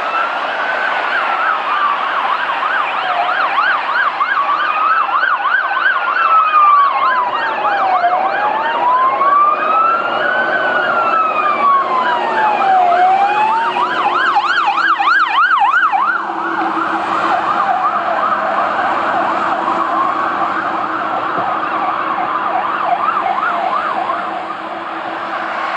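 Emergency sirens of a Scania P450 heavy rescue fire truck and an ambulance on an emergency run: a slow wail rising and falling about once every two and a half seconds, joined by a rapid yelp for several seconds in the middle. About two-thirds of the way through the slow wail drops away and a quicker wail carries on over a steady low hum.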